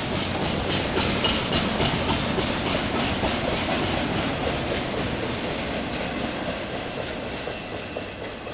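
A train rolling past, its wheels clacking rapidly and evenly over the rail joints; the sound slowly fades toward the end.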